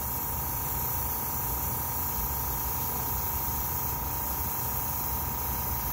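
Airbrush spraying paint in a steady, unbroken hiss, over a steady machine hum.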